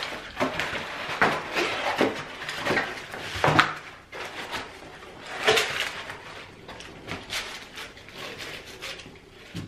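Cardboard takeout pizza boxes being opened and shifted on a table: lids flipping open, cardboard scraping and knocking in irregular bursts.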